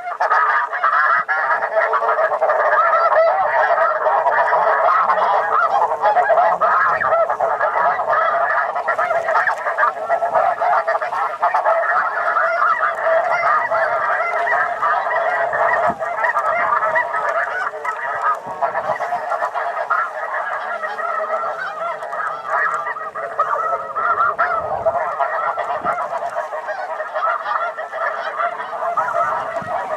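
A huge flock of snow geese calling all at once: a dense, continuous din of overlapping honks that starts abruptly and eases slightly in the second half.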